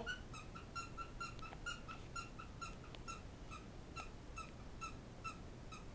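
A faint, steady run of short high chirping squeaks, about four or five a second, each at the same pitch.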